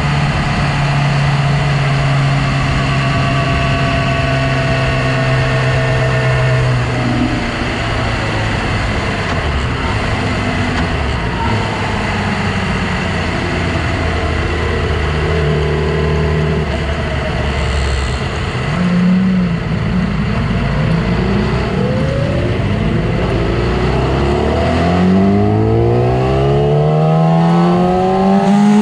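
2006 Yamaha R6's 600 cc inline-four engine running hard on track: it holds high revs at first, drops lower and wavers through the middle, then climbs steadily in pitch under hard acceleration near the end, with a gear change right at the end.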